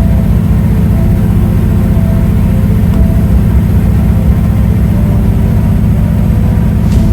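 An engine running steadily, a loud low drone.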